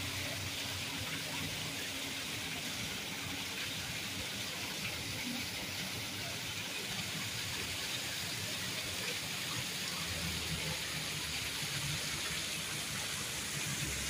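Steady hiss of rushing or falling water, even and unbroken throughout.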